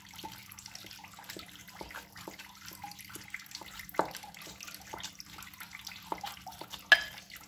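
Tofu being mashed in a glass bowl: repeated soft, wet squishes and light taps of the masher against the glass, about two or three a second, with a sharper knock about four seconds in and another near the end.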